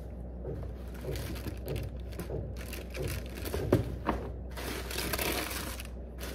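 Cardboard sneaker box being handled, with light knocks and a sharper knock a little before four seconds in, then tissue paper inside the box rustling from about four and a half seconds in.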